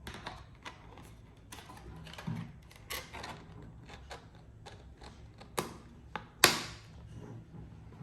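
Irregular clicks and knocks of hard objects being handled and set down, with a sharper, louder knock about six and a half seconds in.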